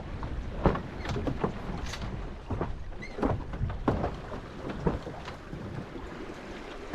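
Small sailing dinghy under way in a gusty wind: wind rumbling on the microphone, with irregular knocks and slaps from the hull and its fittings. The rumble eases in the second half.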